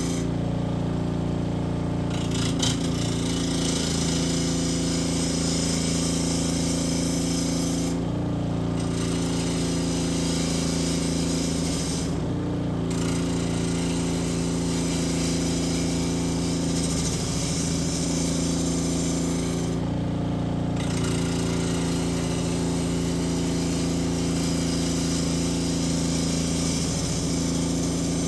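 Electric power tool shaping walnut wood, its motor running steadily throughout. A dense, high-pitched working hiss drops away briefly four times while the motor keeps going.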